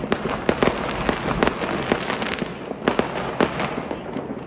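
Many fireworks and firecrackers going off at once: a constant crackle with sharp bangs two or three times a second, easing slightly near the end.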